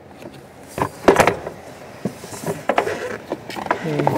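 Hard plastic parts knocking and clicking as the blower motor's plastic shield is handled and fitted up under the dash: a run of sharp knocks, the loudest about a second in.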